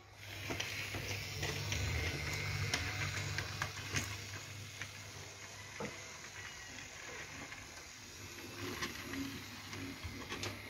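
Hape battery-powered toy locomotive running on a wooden railway track with a steady low motor hum, its wheels clicking over the track joints as it pulls its carriages.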